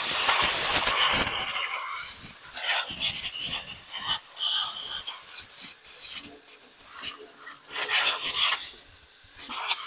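Compressed-air blow gun blasting dirt off the top of a lawn mower engine: a loud hiss, strongest for the first second and a half, then shorter bursts of air on and off.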